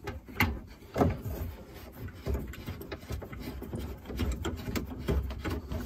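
Plastic threaded fittings of an RV black tank flush check valve being unscrewed by hand: scattered light clicks and rubbing of plastic.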